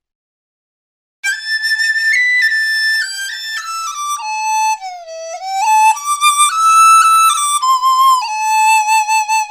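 A flute-like wind instrument plays a short solo melody, starting about a second in. It moves in stepped notes with a few sliding dips in pitch in the middle, then ends on a wavering held note.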